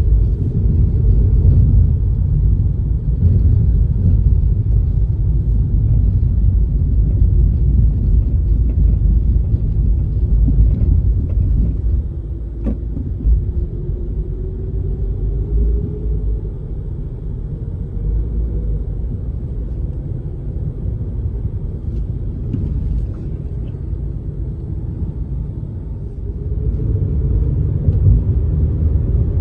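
Car driving, heard from inside the cabin: a steady low rumble of engine and tyres on the road, quieter through the middle stretch. Twice a faint engine note rises as the car picks up speed, the second time near the end, when the rumble grows louder again.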